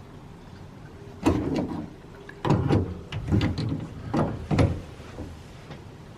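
The tankless water heater's service valves being turned back on by hand: about five short, sharp clunks between one and five seconds in.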